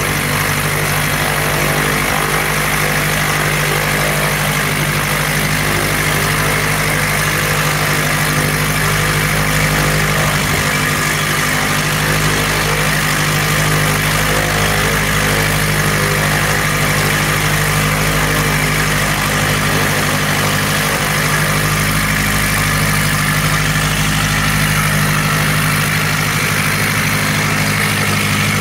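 Light biplane's piston engine running steadily at idle with its propeller turning; the pitch holds even throughout.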